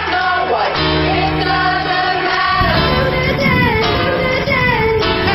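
Background music: a song with a singing voice over a steady bass line.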